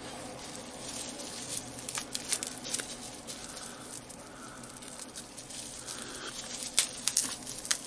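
Packaging being handled and opened by hand: soft crinkling and rustling with scattered small clicks, and a few sharper clicks near the end.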